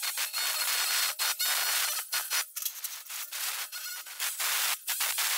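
Electric rotary hammer chiselling out the centre of a wiring chase in a brick wall. It runs steadily for about two seconds, then in short bursts.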